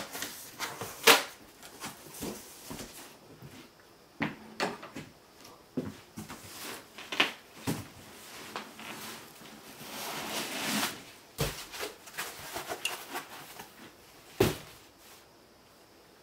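Cardboard packaging being handled: irregular knocks, thumps and rustling as the contents are lifted out of a large cardboard box and a smaller inner box is set down on a table. The loudest knock comes about a second in, a longer rustling scrape at about ten seconds, and a sharp thump near the end.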